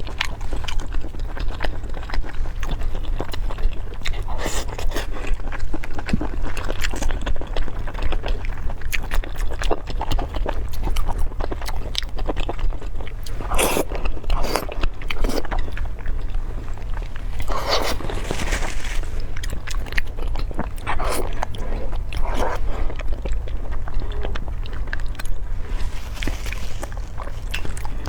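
Close-miked eating: irregular chewing and crunching bites with a few scrapes, over a steady low hum.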